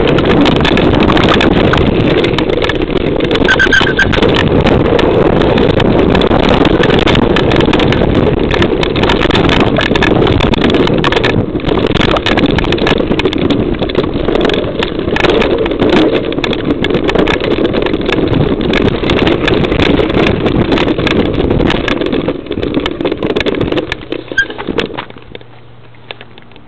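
Mountain bike riding fast down a rough dirt trail: wind rushing over the mounted camera's microphone, with constant rattling and many knocks from the bike over bumps and roots. The noise dies away near the end as the bike comes to a stop.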